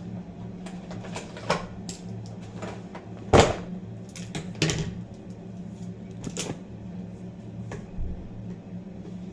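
Makeup things being handled, clicking and knocking several times at uneven intervals: an eyeshadow palette and tools picked up, opened and set down, with one sharper knock about three and a half seconds in. A steady low hum runs underneath.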